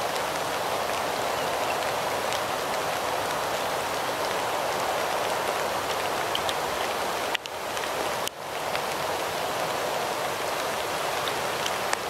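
Steady rain falling, an even hiss with a few faint drip ticks, that dips out suddenly twice just past the middle.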